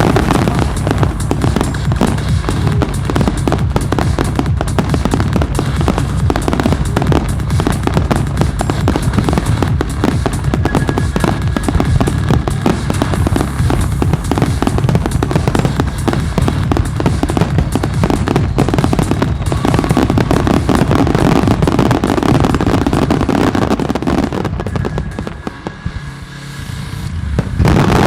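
Starmine fireworks barrage: shells bursting and crackling in dense, rapid succession with a heavy low rumble, over music. About 25 s in the firing thins briefly, then swells again to a loud peak at the end.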